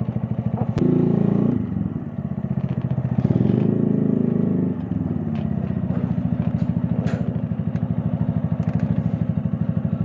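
Keeway Cafe Racer 152's single-cylinder engine running through an Akrapovic full-system exhaust with its dB killer fitted, putting along at low speed with an even pulse. It gets louder twice, about one second and about three seconds in, then settles back to a steady low beat.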